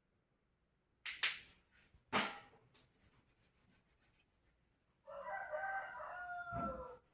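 Two sharp knocks about a second apart, then a rooster crowing once, about two seconds long, near the end.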